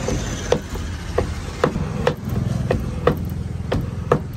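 Hinged lever-blade cutter chopping repeatedly through a frozen orange kulfi, the steel blade knocking down onto a wooden board about two times a second, around eight sharp chops in all.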